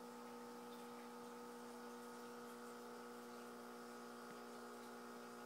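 Faint steady electrical hum made of several constant tones over a light hiss.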